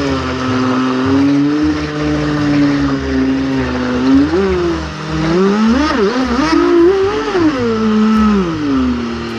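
Radio-controlled speedboat motor whining at speed, its pitch steady at first, then rising and falling several times from about four seconds in as the throttle is worked, and dropping near the end.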